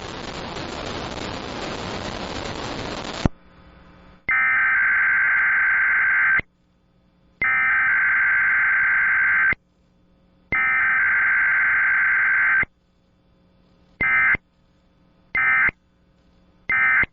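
A loud hiss of noise for about three seconds, cutting off abruptly. Then a SAGE EAS encoder sends its digital SAME header three times, as harsh two-second data bursts about a second apart. Three short end-of-message bursts follow, the pattern of a Required Weekly Test.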